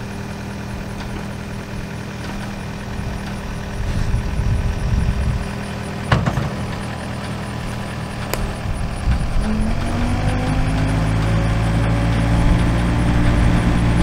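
John Deere 317G compact track loader's diesel engine running steadily, with a couple of sharp knocks. From about ten seconds in, its pitch rises and it gets louder as the engine takes the load of pushing a bucket of dirt.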